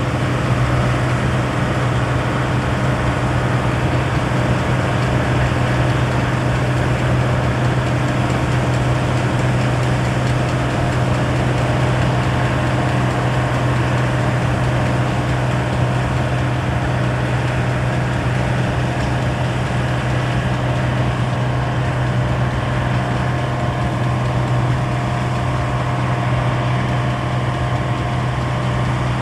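Deutz-Fahr TopLiner combine harvester running steadily while harvesting oilseed rape: a constant low engine drone with the dense rushing clatter of its cutting and threshing machinery over it.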